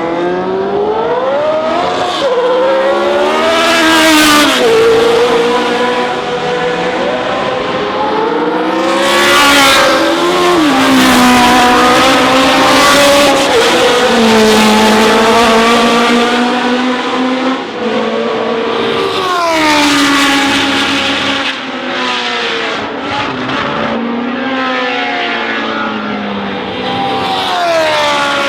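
Historic racing car engines at full throttle. The pitch climbs and then drops sharply again and again as they change gear.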